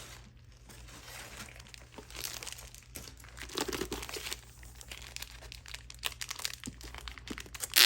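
Crinkly packaging being handled and unwrapped, with irregular crinkles and crackles and a loud, sharp crackle near the end.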